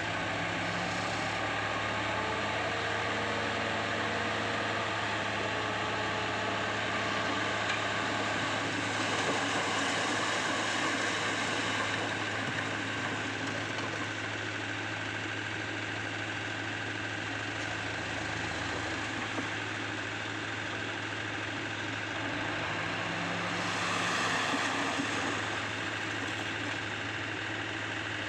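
Komatsu PC75UU excavator's diesel engine running steadily at a constant level, swelling slightly around ten seconds in and again about three-quarters of the way through.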